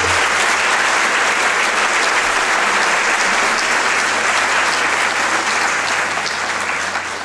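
Audience applauding, a steady dense clapping that tapers off near the end.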